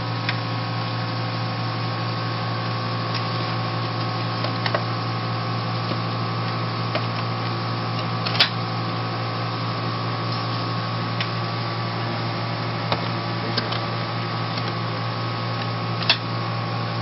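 Steady machine hum with several fixed pitches. Over it come a few light clicks and knocks as a plastic ink tray and roller parts are fitted into a flexographic press print unit. The sharpest click comes a little past the middle.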